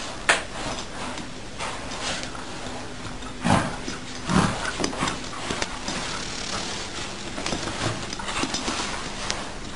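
A fabric pet bed with a cat in it dragged in jerks across a rug and floor by a small dog, scraping and rustling with irregular knocks, the loudest near the start and around the middle.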